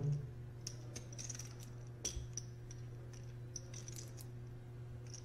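Poker chips clicking together as players handle and riffle them at the table: faint, irregular clicks over a steady low hum.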